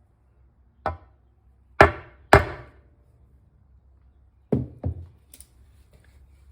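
Hammer blows on a seal-driving tool, about five sharp strikes at uneven intervals, pounding a new seal into the Gravely transmission cover's casting to sit flush.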